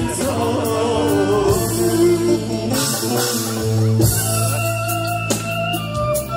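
Live concert music: a singer over instrumental backing, with long held notes in the second half.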